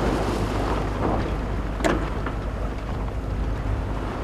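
Wind buffeting the microphone over choppy sea water, with a steady low rumble underneath and one sharp slap about two seconds in.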